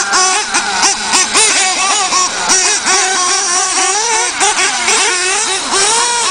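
Radio-controlled off-road cars racing, their small high-revving motors rising and falling in pitch again and again as the throttle is opened and closed, with more than one car heard at once.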